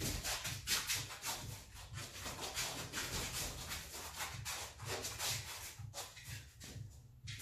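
Continuous rustling and scuffing, many short scratchy strokes one after another, as a six-month-old Drahthaar (German wirehaired pointer) puppy jumps up and scrabbles against a man's clothing and the concrete floor.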